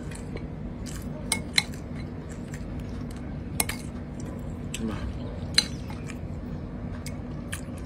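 Metal spoon clinking against a ceramic bowl and plates as curry is scooped, a handful of sharp clinks spread through, over a steady low hum.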